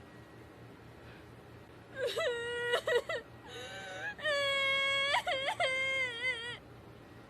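A high-pitched voice making a few drawn-out notes, some bending upward at their ends and the last one wavering, starting about two seconds in and stopping a little before the end.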